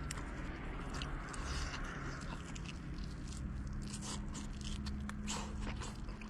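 A person chewing and biting into braised beef with the skin on, with scattered wet clicks and smacks of the mouth over a steady low hum.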